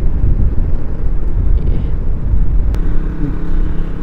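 Wind buffeting a motorcycle-mounted microphone while a single-cylinder KTM RC sport motorcycle cruises at about 40–60 km/h, with a steady engine hum coming through about three seconds in and one sharp click shortly before.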